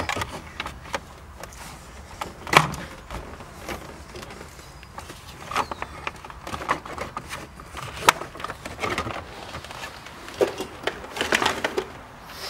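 Plastic centre console trim bezel of a C5 Corvette being pried and pulled loose: its clips pop and the plastic clicks and knocks, with the sharpest snaps about two and a half seconds in and again about eight seconds in.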